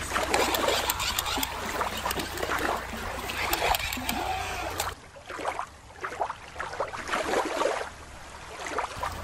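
Shallow water lapping and splashing against rocks, with wind rumble on the microphone. About halfway through, the sound cuts to a quieter ambience without the wind.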